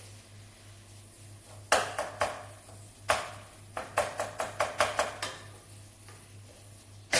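Metal kitchenware clattering: a utensil knocking against a pot or pan, a few knocks about 2 s in, then a quick run of about eight knocks in the middle and more at the end.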